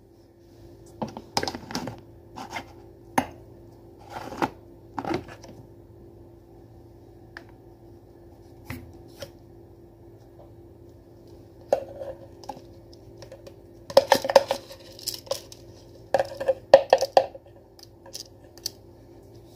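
A plastic jar being handled and taken off its lid, with scattered clicks and knocks, then a metal spoon clinking and scraping inside the plastic jar in bunches during the second half.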